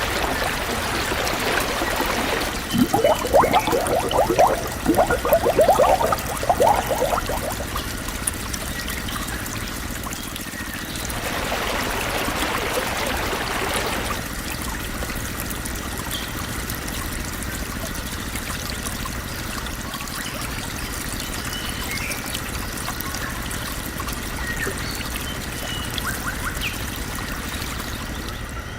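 Water pouring and trickling, louder and more uneven in the first several seconds and again in a spell around the middle.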